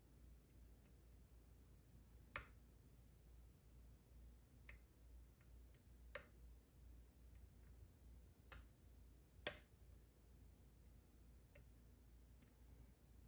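Faint, sparse metallic clicks of a dimple pick and tension tool working the pins of a Goal D9 nine-pin dimple lock, with four sharper clicks spaced a few seconds apart.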